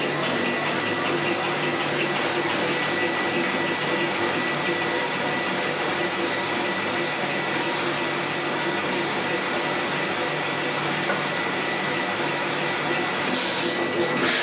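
Steady machine whir with a rush of air and a constant high-pitched whine, unchanging throughout.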